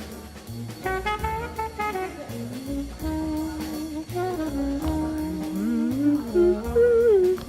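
Jazz band music: a horn melody gliding between notes over a bass line and a drum kit keeping time. It grows louder near the end.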